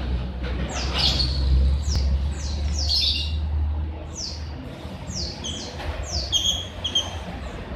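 A bird calling in about a dozen short, high chirps, each falling in pitch, over a low rumble that fades about halfway through.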